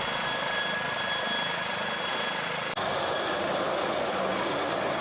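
Helicopter turbine engines and rotors running: a steady rushing noise with thin high-pitched whines. About three seconds in the sound drops out for an instant and comes back with a different whine, as from a cut to another shot.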